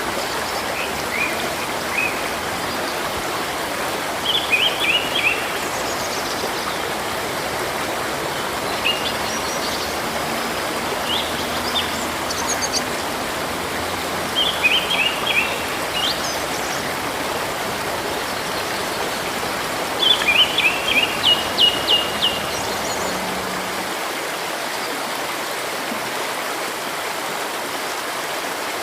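A river flowing steadily, with birds singing over it: short phrases of quick high chirps every few seconds, the busiest and loudest about twenty seconds in.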